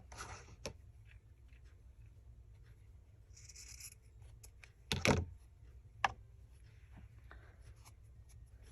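Craft materials being handled on a tabletop while fabric edges are frayed: soft rustling and scraping of fabric and paper, a brief hiss about three and a half seconds in, and a sharp knock about five seconds in followed by a lighter click.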